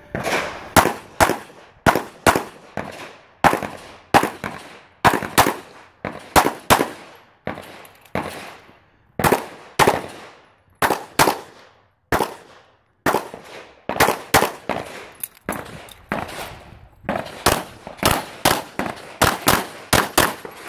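Handgun firing rapidly through a practical-shooting stage. The shots come mostly in quick pairs, with short pauses between strings as the shooter moves, and each report trails off in a brief echo.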